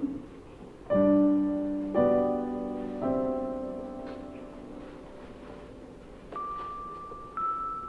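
Background piano music: three chords struck about a second apart, each left to ring and fade, then two single high notes near the end.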